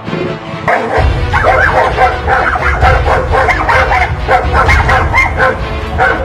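Dogs barking in a fast, continuous volley, starting about a second in, over background music.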